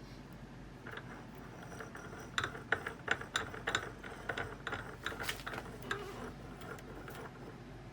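A run of light metallic clicks and clinks as bench vise parts are handled, densest between about two and a half and four seconds in.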